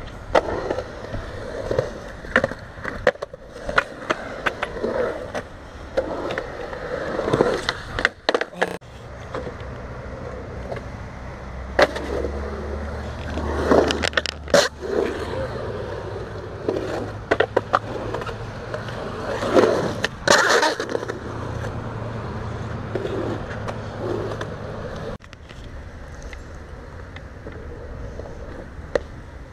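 Skateboard wheels rolling over smooth concrete in a steady roar, broken again and again by sharp clacks and knocks of the board, strongest around a third and halfway through and about two-thirds in.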